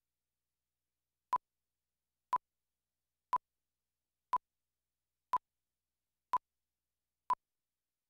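Seven short electronic beeps of one steady pitch, one a second, with dead silence between them: the countdown beeps that run under a production slate and lead into the start of a broadcast spot.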